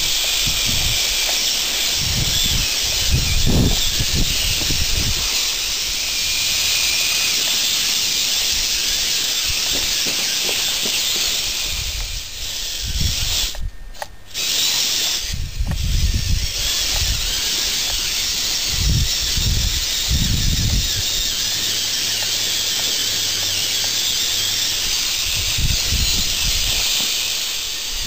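Small 9V electric motors and plastic gears of a Lego Technic 8x8 RC trial truck whirring steadily as it crawls over obstacles, with scattered low thumps. The sound drops out briefly near the middle.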